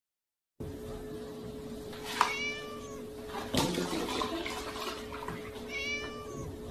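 A kitten meowing twice, a few seconds apart, over milk pouring from a carton into a plastic tub and a steady hum. The sound cuts in abruptly after a short silence.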